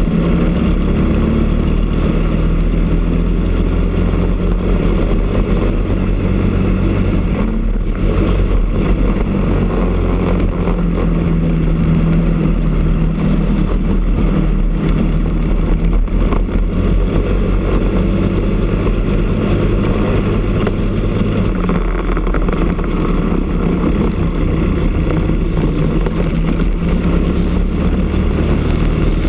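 Briggs & Stratton LO206 four-stroke single-cylinder kart engine running hard at racing speed, heard from the kart itself. The engine note drops and shifts about eight seconds in and again around twenty-two seconds in.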